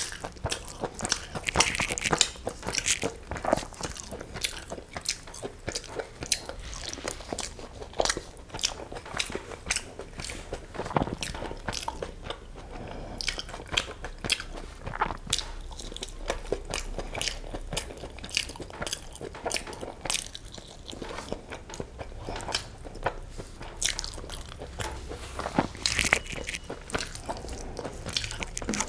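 Close-miked chewing of mouthfuls of egg biryani and chicken curry, a dense run of short wet mouth clicks, with fingers mixing rice and gravy on a steel plate.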